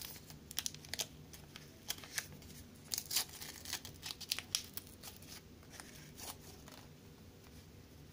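Small packet of a dry screen-cleaning wipe being torn open and handled: a run of sharp crackles and snaps that thin out and stop after about six seconds.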